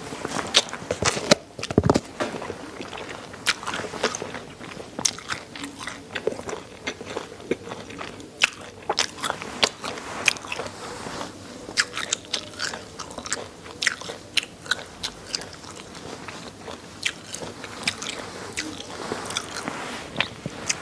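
Close-miked chewing of chicken necks, with the small bones crunching and crackling between the teeth in quick, irregular snaps, along with wet mouth sounds.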